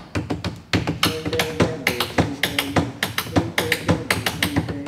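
Rhythmic tapping on a wooden desk, about four strikes a second, with music under it.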